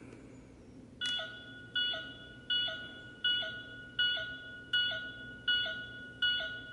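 Bandai Proplica Sailor Moon wand's built-in speaker playing its monster-detector sound effect: an electronic beep repeating evenly about once every three-quarters of a second, starting about a second in.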